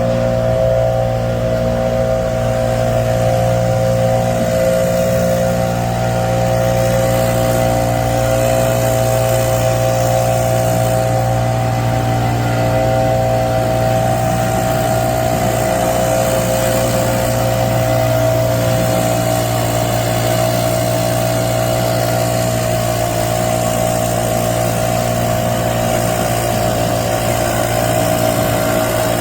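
An engine running steadily at one constant speed, with a hum and a higher, even whine.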